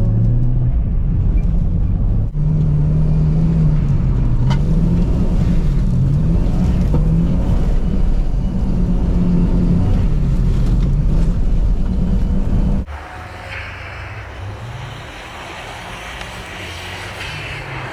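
Car engine revving and easing off again and again, its pitch rising and falling in waves. About thirteen seconds in it drops suddenly to a much quieter, hissier running sound.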